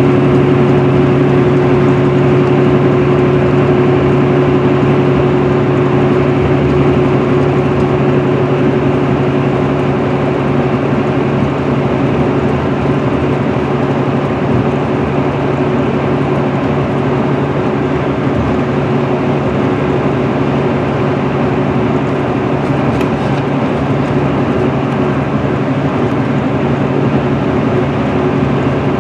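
Interior sound of a 2010 MCI D4500CL coach with a Cummins ISM diesel cruising steadily at freeway speed: an even engine hum mixed with tyre and road noise.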